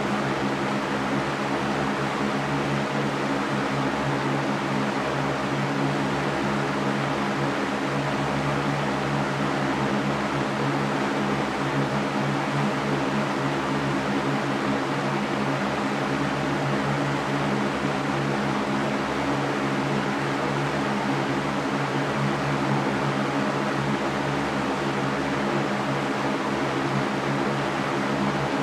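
Electric fan running steadily: an even rush of air with a constant low hum beneath it.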